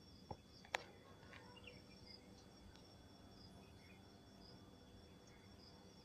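Faint, steady chirring of crickets, a continuous high thin tone with short repeated chirps over it. A sharp click comes just under a second in.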